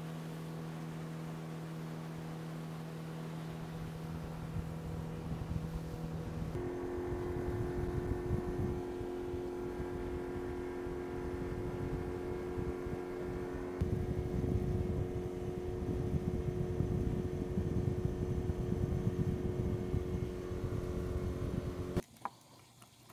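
Fishing boat's motor running at speed under way, a steady engine note with a rushing noise beneath it. The note steps up to a higher pitch about six seconds in, and the sound cuts off suddenly near the end.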